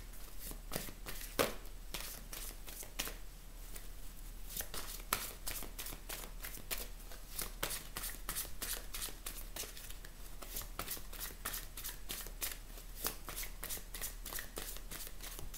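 A deck of large oracle cards being shuffled by hand: a continuous run of quick, irregular clicks and slaps of card against card.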